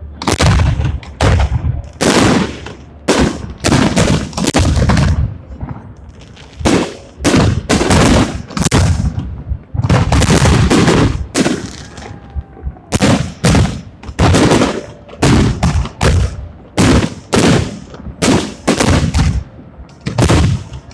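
Fireworks display: aerial shells bursting in rapid, irregular succession, loud bangs one after another with only brief lulls, each trailing off.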